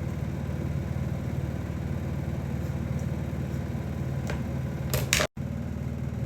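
Steady low hum of a running electric motor, with a few short clicks about four and five seconds in and a brief cut-out just after.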